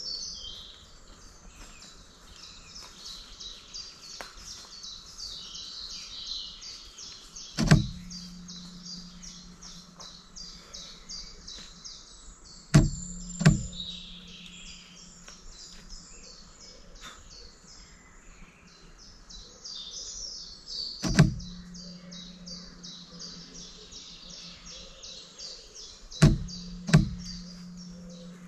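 Continuous rapid high-pitched chirping of woodland wildlife, many short calls a second. Six sharp clicks are the loudest sounds: one about 8 seconds in, a close pair around 13 seconds, one around 21 seconds and a close pair near the end. Between them runs a low steady hum that drops out briefly at each pair of clicks.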